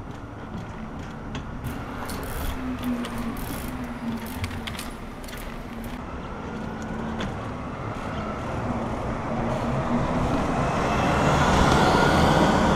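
Street trials bike ridden over paving and concrete ledges: scattered sharp clicks and knocks from the bike over a steady traffic hum. A passing bus grows louder over the last few seconds and is the loudest sound.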